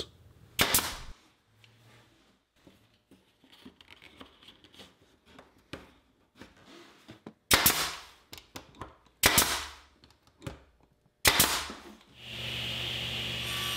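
A nail gun firing nails into wood trim: about four sharp, separate shots spread over several seconds, with faint handling noises between them. Near the end a steady machine hum starts.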